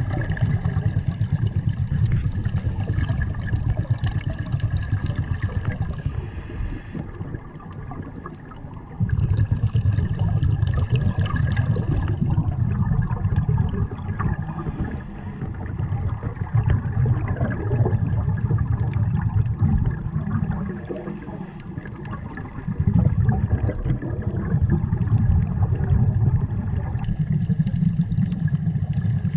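Underwater sound picked up inside a camera housing: a scuba diver's breathing, with long spells of low rumbling, gurgling exhaled bubbles, broken every several seconds by a short hiss of inhaling through the regulator.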